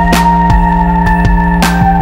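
Electronic background music: held synthesizer chords over a stepping bass line, with a cymbal-like hit about every second and a half.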